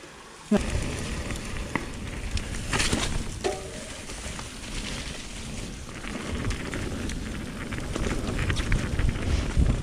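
Mountain bike rolling fast down a steep dirt trail: tyres crackling and rattling over the ground, with wind buffeting the microphone. It starts suddenly about half a second in and grows gustier towards the end.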